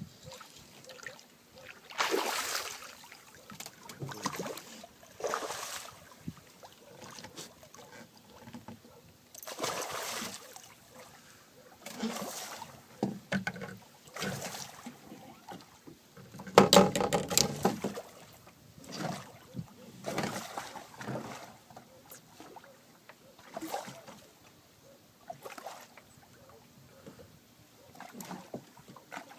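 Intermittent splashing, knocks and handling noises around a small fishing boat on the water, in a dozen or so short, irregular bursts with one louder burst a little past the middle.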